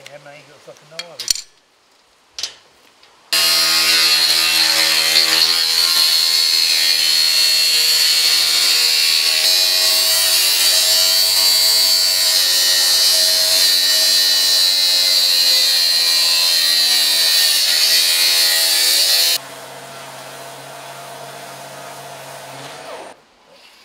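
Angle grinder with a cutting disc slicing through sheet steel: a loud, steady, high-pitched scream that starts after a few knocks about three seconds in. About three-quarters of the way through it drops suddenly to a quieter steady sound that runs for a few seconds more.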